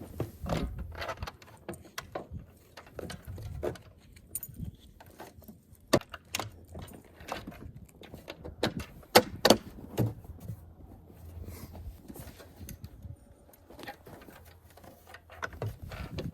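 Irregular clicks, clinks and knocks of metal hardware being handled while fitting a Packout adapter plate onto a snowmobile tunnel's T-slot rails, with sharper knocks about six, nine and ten seconds in.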